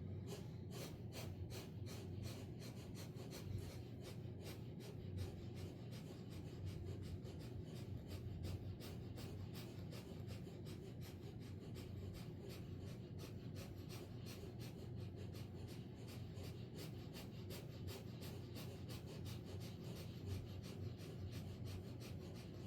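Kapalbhati breathing: a long run of short, quick, evenly spaced puffs of breath, each a gentle exhalation with the inhalation following passively. Faint.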